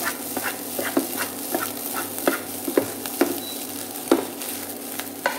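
Fried rice being stir-fried with a wooden spatula in a nonstick frying pan. The rice sizzles steadily while the spatula scrapes and knocks against the pan about twice a second, with one louder knock about four seconds in.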